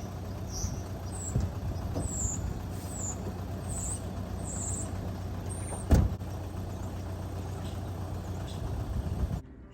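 Vehicle engine running with a steady low hum, a series of short high chirps, and one loud thump about six seconds in; the sound drops away abruptly near the end.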